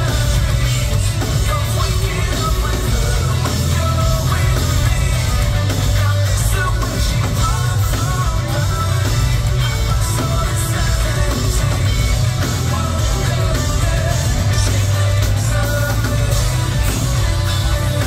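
Live rock band playing loudly: electric guitars, bass and drums, with a singer's voice.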